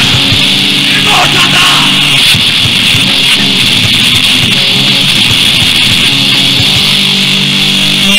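Underground metal music from a raw 1987 cassette demo: electric guitar riffing over bass guitar, loud and dense throughout.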